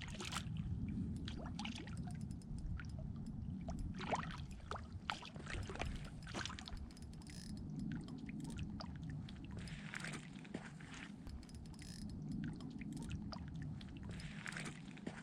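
Water trickling and pouring steadily, with scattered light clicks and knocks.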